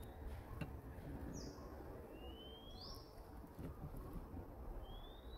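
Faint high chirping calls: several short, thin whistles, most rising in pitch, over a quiet steady background hiss.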